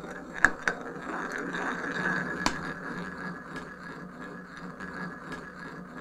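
Two small balls rolling round and round inside a wooden bowl, a steady rolling rumble with a few sharp clicks, the loudest about two and a half seconds in. The rumble slowly gets quieter.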